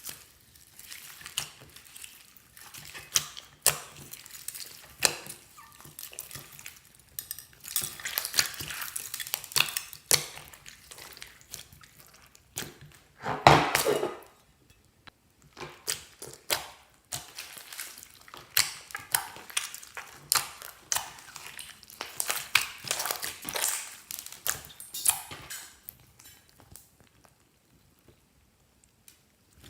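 Clear slime being mixed and worked by hand, giving irregular sticky clicks and wet pops, with one longer, louder squelch about halfway through.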